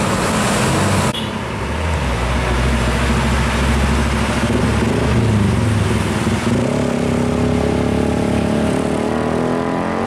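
Heavy diesel trucks and other road traffic passing close by, with a deep engine rumble. From about two-thirds of the way through, an engine rises steadily in pitch as it accelerates.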